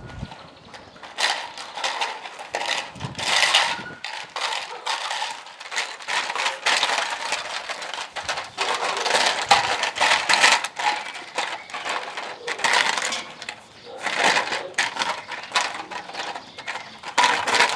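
Plastic bottles hung on cords being bitten and batted by Dobermann puppies, crinkling and rattling in a dense, irregular run of clicks and crackles, with loose pieces rattling inside a bottle.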